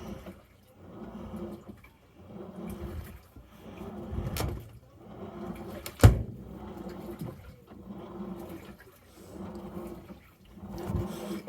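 Samsung washing machine washing: the drum turns back and forth with water sloshing in regular swishes, a little more than one a second. There is one sharp knock about six seconds in.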